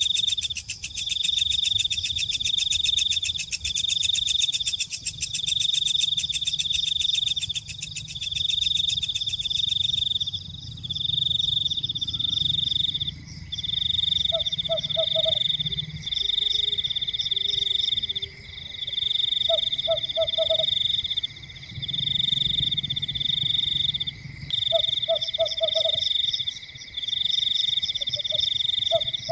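Frogs calling: a high pulsing trill repeats in bouts of about a second and a half with short breaks, and a lower, shorter croak joins in four times.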